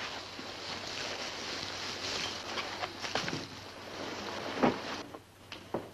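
A steady rushing hiss with a few soft knocks, cutting off suddenly about five seconds in.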